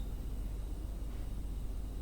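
Steady low rumble and faint hiss of background noise while the cricket is silent between its bouts of chirping.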